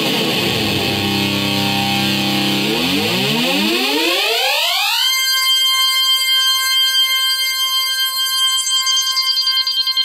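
Oberheim OB-SX analog synthesizer sounding a single loud, rich note. Its pitch sweeps down over about a second and a half, holds low, then glides back up over about two seconds. It settles into a steady high tone that wavers slightly near the end.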